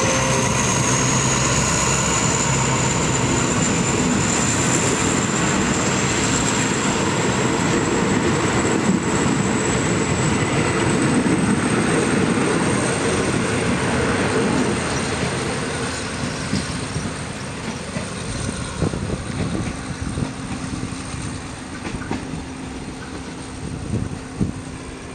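Passenger coaches of a State Railway of Thailand train rolling past, wheels rumbling and clattering on the rails, with a thin high whine rising slowly in pitch. The noise fades from about fifteen seconds in as the train pulls away, with a few separate clacks near the end.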